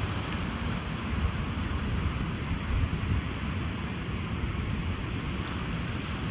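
Ocean surf washing on a beach, with wind buffeting the microphone in a steady, fluttering low rumble.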